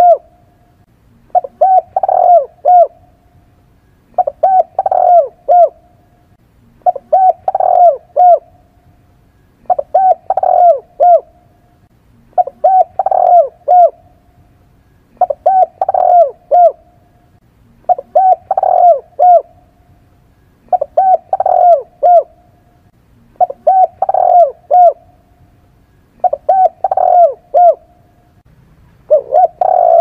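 Spotted dove cooing: a short phrase of about five coos, repeated about every two and a half to three seconds.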